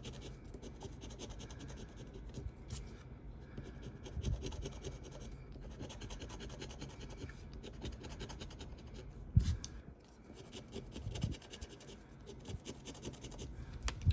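Scratching the coating off a paper scratch-off lottery ticket: runs of quick scraping strokes with short pauses between them. A single thump about nine seconds in.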